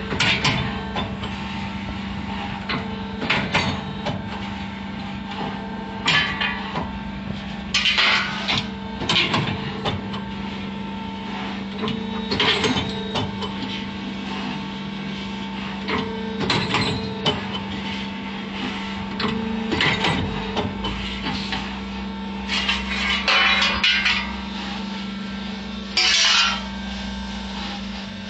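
CNC angle cutting machine with an automatic feeder at work: a steady hydraulic hum under repeated loud metallic clanks and bangs every one to three seconds, with a few longer clattering bursts as steel is cut and moved.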